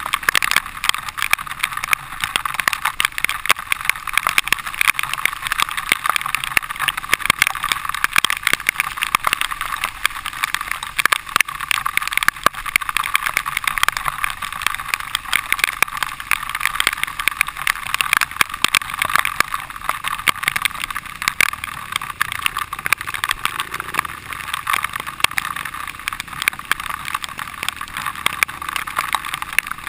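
Dirt bike ridden along a rough trail, heard through a helmet-mounted camera: a steady rushing noise dense with crackles and knocks.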